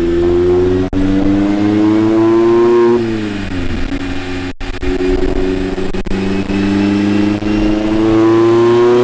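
Mazda MX-5 Miata RF's 2.0-litre four-cylinder revving under load on a chassis dyno, exhaling through a Goodwin Racing RoadsterSport SuperStreet axle-back exhaust with its baffle removed. The engine note climbs, falls away about three seconds in, then climbs steadily again, and the sound cuts out for an instant a few times.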